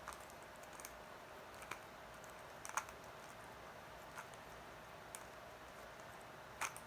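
Rubik's Cube being turned one-handed: irregular plastic clicks as the layers snap round, the loudest about three seconds in and again near the end, over a faint steady hum.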